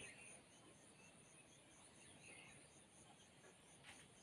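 Faint outdoor ambience of insects, likely crickets, trilling steadily with an even pulse about three times a second, and a few faint bird chirps.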